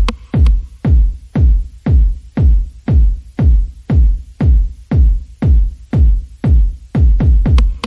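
Electronic background music: a deep kick drum beats about twice a second, each hit sliding down in pitch, with a light electronic layer between the beats.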